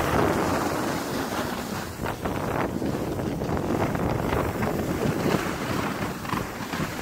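Wind buffeting the microphone of a moving rider, mixed with the hiss and scrape of a snowboard sliding over packed snow on a downhill run.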